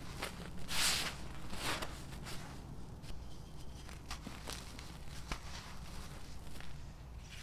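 Dry charcoal-and-sand block crushed and crumbled in the hands: gritty crunching and crackling, loudest about a second in and again near two seconds, then scattered smaller crackles as the crumbs are rubbed between the palms.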